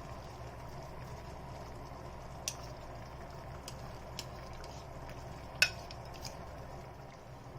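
A steady low hiss from the cooking pot. A few sharp metal clinks against the pot, about 2.5, 4 and 6 seconds in. The loudest comes about five and a half seconds in and rings briefly.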